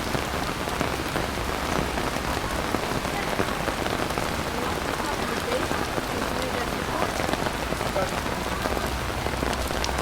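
Pouring rain falling steadily, a dense, even patter of countless drops with no let-up.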